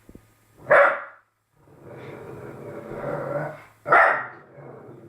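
Labrador puppy giving two sharp barks about three seconds apart, with a long low growl between them.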